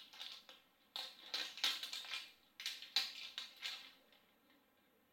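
Crinkling and rustling of an L.O.L. Surprise ball's plastic wrapping being peeled off by hand, in several short spurts that stop about four seconds in.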